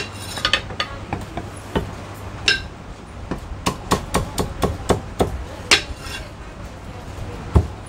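Chinese cleaver chopping crispy-skinned roast pork belly on a thick wooden chopping block: a string of sharp, irregular chops, coming quicker in the middle, with the heaviest blow near the end.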